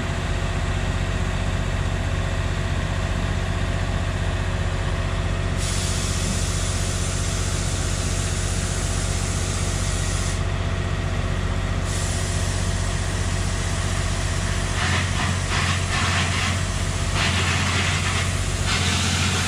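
Hitachi EX3600 mining excavator's Cummins QSK60 diesel engine running steadily with a low hum. A rough hissing comes and goes over its last few seconds.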